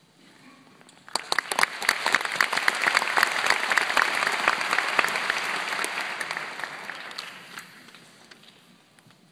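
Audience applauding: dense clapping starts about a second in, swells, then dies away near the end.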